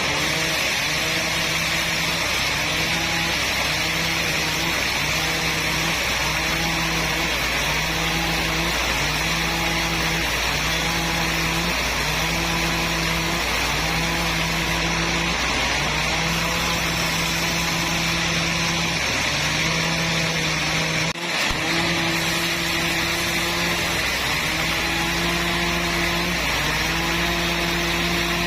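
Sawmill saw cutting timber, a loud steady rasping over a low hum that pulses on and off about once every second and a half. A brief break comes about two-thirds of the way through.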